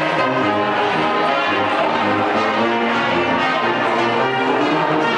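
A brass band playing a tune, held brass notes over a low bass line.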